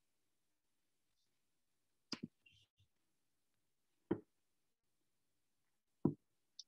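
Three sharp taps, evenly spaced about two seconds apart, with a few fainter small clicks between them, in an otherwise quiet small room.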